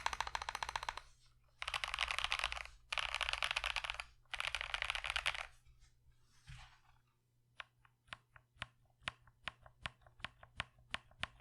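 Mechanical keyboard with Agile Moon factory-lubed linear switches being typed on. Rapid typing comes in bursts of about a second each through the first half, then slower, separate keystrokes at about four a second.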